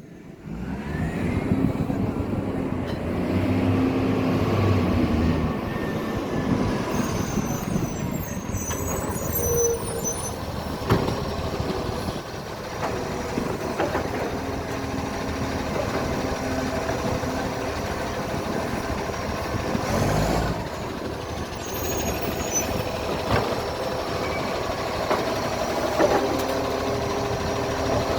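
Garbage truck's diesel engine running with a very bad exhaust leak, revving up over the first few seconds and then pulling steadily. Several sharp knocks along the way, and a short burst of air from the air brakes about 20 seconds in.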